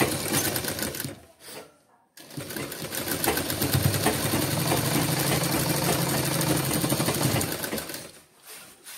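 Sewing machine stitching a shoulder seam through two layers of white apron fabric: a short run, a brief stop, then a long steady run of rapid needle strokes over a motor hum that stops about a second before the end.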